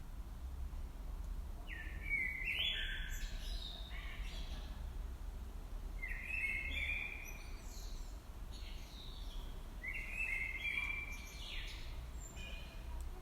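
A songbird singing short phrases of clear, stepped whistled notes, three phrases about four seconds apart, over a low steady rumble of garden background noise.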